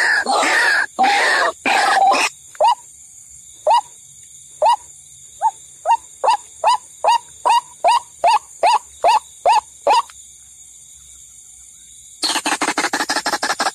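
White-breasted waterhen (ruak-ruak) calls, a bird-trapping lure recording. A dense run of harsh calls gives way to a series of short single notes that speed up from about one a second to about three a second and stop around ten seconds in. After a pause, the dense calling starts again near the end.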